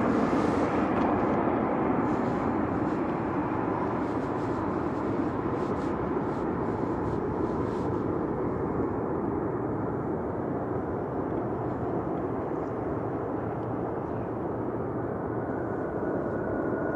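Jet airliner engines running with a steady rushing noise that eases slightly over the first few seconds, with a faint high whine coming back in near the end.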